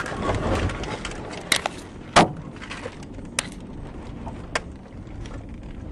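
Rustling, then four sharp clicks and knocks inside a moving car, the loudest about two seconds in, over steady low road noise.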